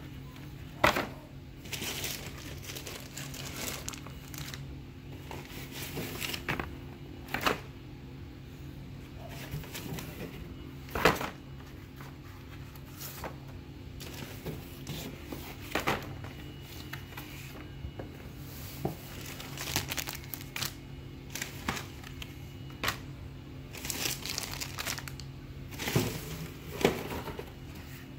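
Flattened cardboard boxes being handled and flipped through: rustling and sliding, with sharp flicking snaps every few seconds, over a steady low hum.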